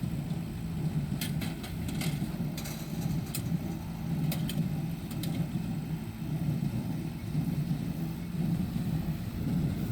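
John Deere 5085E tractor's diesel engine running steadily under load as it pulls a John Deere 328 square baler through the hay, with a few sharp clicks in the first half.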